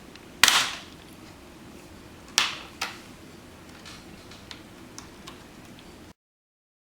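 Plastic screen bezel of a laptop being pried off by hand, its clips letting go with sharp plastic snaps. The loudest snap comes about half a second in, two more come around two and a half seconds, then a few lighter ticks, and the sound cuts out abruptly near the end.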